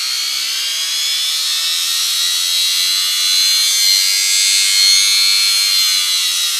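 Small vacuum-cleaner universal motor, its stator coils disconnected so it runs on the rotor's attraction to the laminated cores, running with a high electric whine. About two seconds in its pitch drops as it is loaded with a finger and bogs down.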